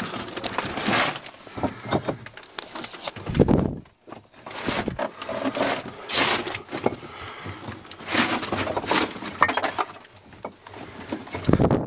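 Irregular scraping, knocking and clattering of loose bricks shifting as someone crawls over a heap of dumped bricks, with two heavy thuds, one about three seconds in and one near the end.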